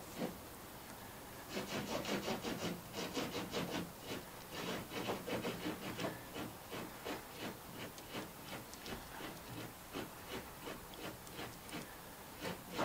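Dry punk wood crumbled and rubbed between fingers onto a bow-drill ember, a quick run of dry rasping strokes that starts about a second and a half in and thins out toward the end. The crumbled wood is being sprinkled on to feed and enlarge the ember.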